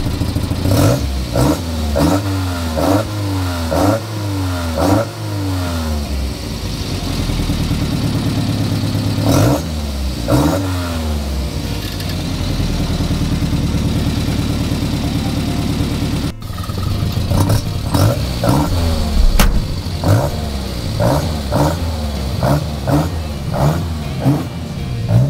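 Datsun/Nissan Sunny Truck's carburetted four-cylinder engine being revved in repeated quick throttle blips, each rising and falling back, with a steadier running stretch in the middle. The blips come closer together in the last few seconds.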